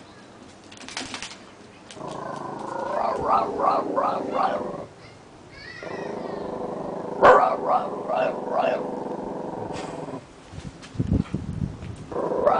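Italian greyhound growling in two long bouts, each broken by a string of short woofs, the first starting about two seconds in and the second about six seconds in. It is a guard dog's alert growl.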